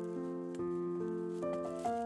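Background instrumental music: a slow melody of held, keyboard-like notes that step from one pitch to the next every half second or so.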